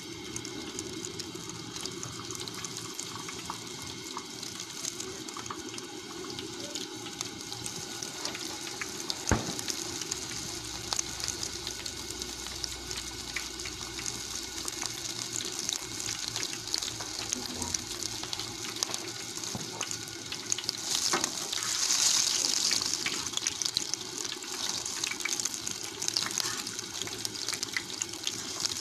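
Battered shrimp and fish pieces deep-frying in a disc fryer of hot oil: a steady sizzle full of fine crackles. One sharp knock comes about a third of the way through, and the sizzle swells louder for a couple of seconds about three quarters of the way through.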